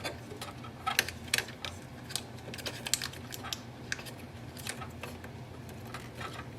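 Irregular small plastic clicks and taps as ink tubes are pressed into their clips inside an Epson EcoTank printer. The clicks are sharpest about a second in.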